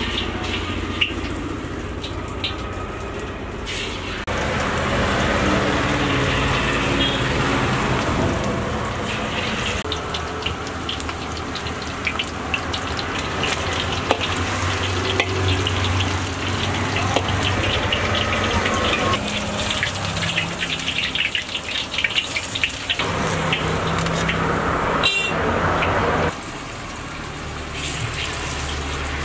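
Batter-coated chicken strips deep-frying in hot oil in an iron wok, a continuous sizzle dense with fine crackling as they are stirred, over a steady low hum. The sizzle changes level abruptly several times.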